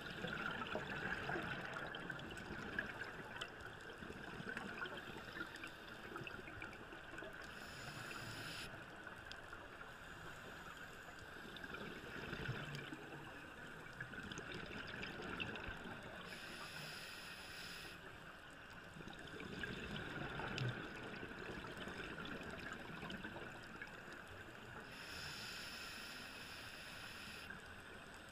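Underwater scuba diving sound: a diver breathing through a regulator, with a surge of hiss and exhaled bubbles about every eight seconds over a steady muffled water hiss.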